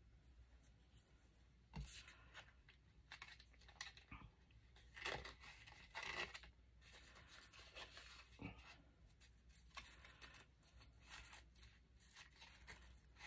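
Faint, intermittent rustling and tearing of paper and ribbon being handled while decorating a craft tag, with a few soft taps; the loudest rustling comes about five to six seconds in.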